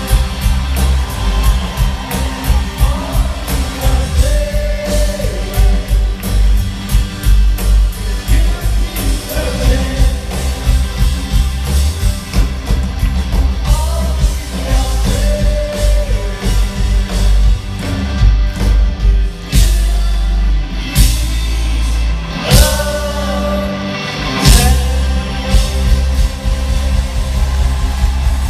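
Live rock band with drums, bass and a lead singer playing a song, heard from the audience in a large hall. About two-thirds of the way in the band plays a run of loud accented hits with short breaks between them.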